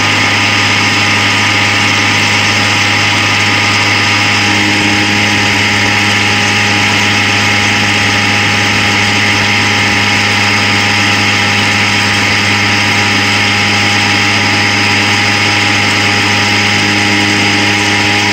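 Homemade tuna-can centrifuge filter for waste oil spinning at about 6500 rpm in a bucket, its drive running with a loud, steady hum and whine. The tone shifts slightly about four and a half seconds in.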